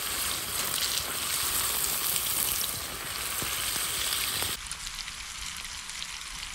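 Trumpet chanterelles and hedgehog mushrooms sizzling in butter in a pan over a campfire, a steady crackling hiss. About four and a half seconds in it drops off abruptly to a quieter hiss with faint ticks.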